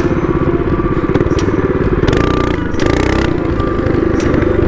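Predator 212cc single-cylinder four-stroke engine on a mini bike running hard at high, steady revs at road speed. Two short bursts of hiss come about two and three seconds in.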